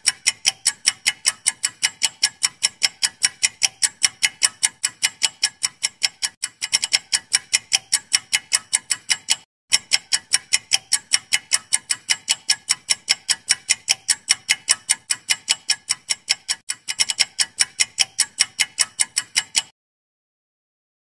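Countdown-timer sound effect of fast, even clock ticks, about four a second. It breaks off briefly about nine and a half seconds in, starts again, and stops a second or so before the end.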